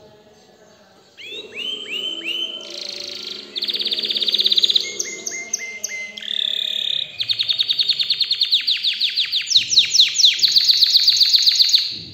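Canary singing: after a quiet first second, a run of down-slurred whistled notes, several short rapid trills, then a long, fast trill of about five seconds.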